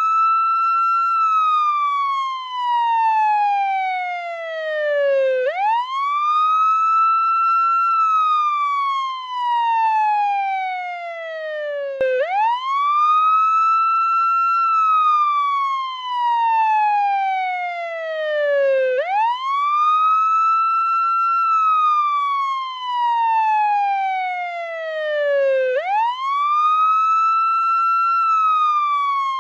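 Portuguese ambulance wail siren: a single tone that sweeps up quickly, holds briefly at the top, then slides slowly back down, repeating about every seven seconds.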